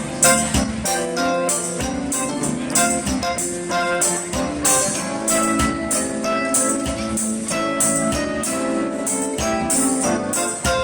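Music with a steady beat: instruments playing with tambourine-like hits on each beat.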